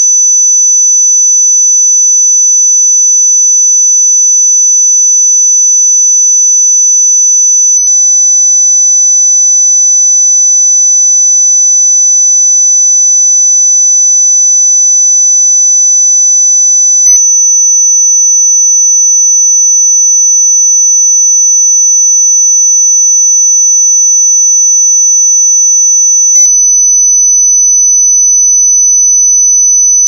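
Continuous electronically generated 6 kHz sine tone, a single steady high-pitched whistle played as an anti-bark dog whistle. Three faint clicks break through it, spread across the stretch.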